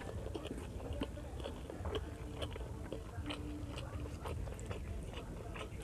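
Close-up chewing of pork liver igado and rice, with many small irregular mouth clicks.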